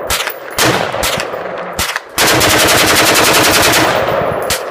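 AR-15 rifle bump-firing through a slide stock: rapid strings of shots in machine-gun-like bursts. There are a couple of short bursts and a lone shot, then one long burst of about two seconds.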